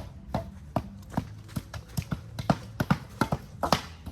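Rapid, uneven series of sharp knocks and taps, about three or four a second, some louder than others.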